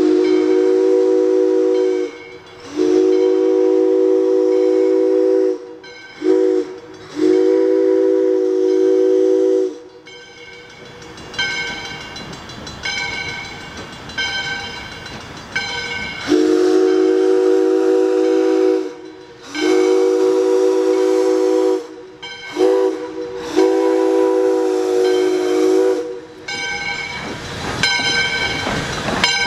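Chime whistle of 2-8-2 steam locomotive No. 40 blowing the grade-crossing signal, long, long, short, long, twice over. Between the two sequences a bell rings, and near the end the engine's exhaust chuffs louder as it comes closer.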